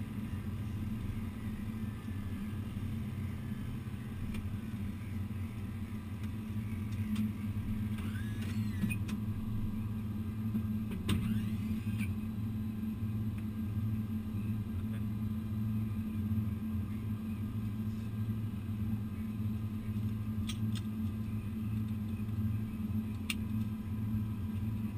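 Steady low drone inside an airliner's cockpit as it taxis, engines at idle, with a few faint clicks scattered through it.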